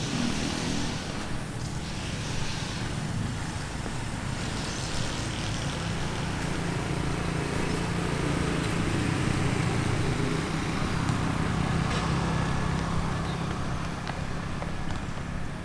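Road traffic: a motor vehicle's engine running past, its low rumble building to a peak about halfway through and easing off near the end.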